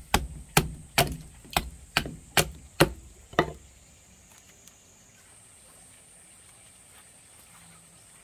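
Small hatchet chopping chips off a block of old, resin-filled pine: about eight quick, sharp blows at roughly two a second, stopping about three and a half seconds in.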